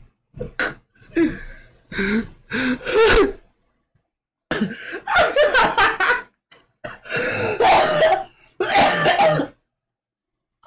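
A man laughing hard, in repeated bursts that break into coughing, with a short pause about four seconds in.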